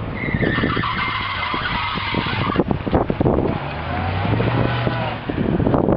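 Pickup truck engine revving hard as it spins its tyres through mud, with a high whine for the first two seconds or so. Later the engine note rises and falls with the throttle.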